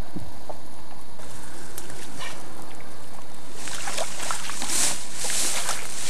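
Water splashing as a large pike is released by hand into the shallow reedy margin, starting a little past halfway in and coming in several surges.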